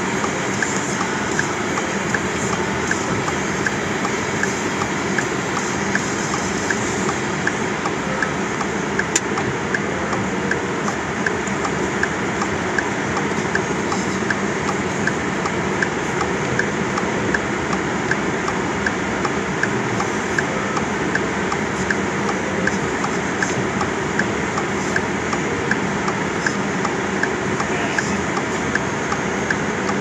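Steady rushing cabin noise inside a car idling at a stop, its engine and heater blower running, with a faint regular ticking about once or twice a second.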